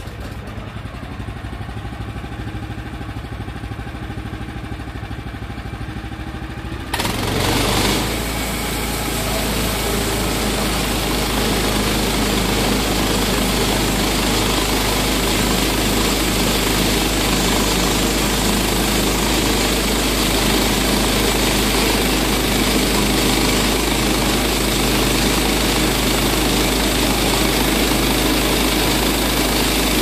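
Woodland Mills HM130MAX bandsaw mill's gas engine starting and idling, then throttled up about seven seconds in as the band blade comes up to speed. It then runs steadily under load as the saw head feeds into a black locust log.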